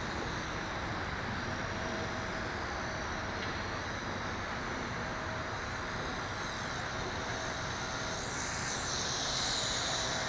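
WLtoys V262 quadcopter's motors and propellers whining over a steady rushing noise. The whine glides up and down in pitch as the throttle changes, and swells about nine seconds in as the quad climbs.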